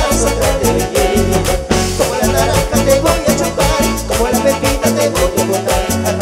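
Upbeat Peruvian huayno dance music played by a band, with a steady driving beat throughout.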